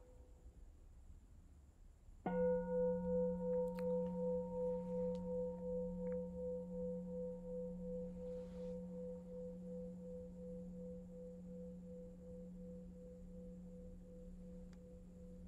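A singing bowl is struck once about two seconds in and then rings on, a low hum with higher overtones that wavers in a slow pulse as it gradually fades.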